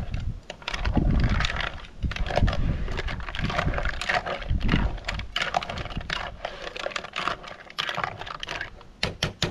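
A spoon stirring a pot of tomato-based chilli mussel sauce: quick, irregular clicks and scrapes of the spoon against the pot and its contents.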